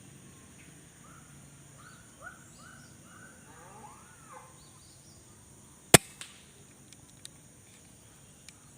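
Birds calling with a short run of rising-and-falling notes, then a single sharp air-rifle shot about six seconds in, followed by a few faint clicks.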